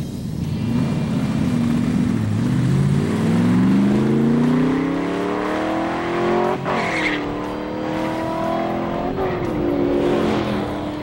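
A 1969 Chevrolet Camaro SS's V8 accelerating hard down a drag strip, its note climbing through the gears. It upshifts twice, about six and a half and nine seconds in, each shift a brief crack followed by a drop in pitch before it climbs again.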